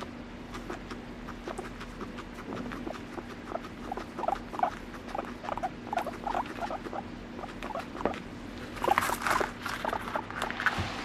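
Abyssinian guinea pig giving short, soft calls a few times a second while being stroked, a sign that it is content. Near the end there is a louder rustling and scuffling as it moves off over the floor and hay.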